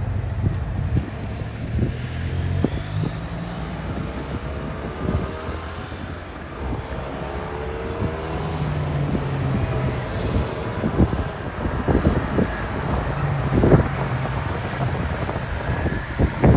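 FTF logging truck's 6V92TA Detroit Diesel two-stroke V6 running, its low note stepping up and down in pitch several times, with knocks and rattles throughout.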